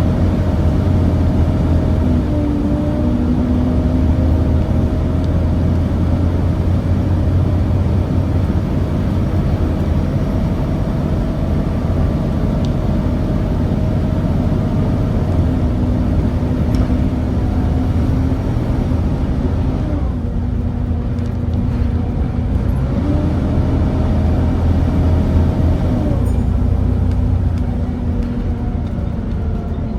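Volvo B7TL bus with its D7C diesel engine and ZF Ecomat gearbox running under way, heard from on board: a steady low rumble with whining tones that shift up and down in pitch several times as the bus changes speed.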